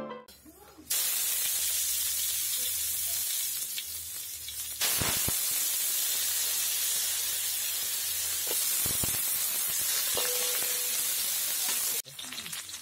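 Loud, steady sizzling hiss from a very hot wok giving off a cloud of smoke and steam, starting about a second in and easing briefly partway through. Near the end it gives way to a quieter, crackling sizzle of lemongrass and shallots frying in oil.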